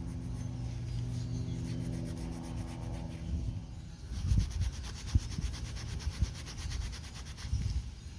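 Quick repeated rubbing or scraping strokes with a few dull knocks, after a steady humming tone fades out in the first three seconds.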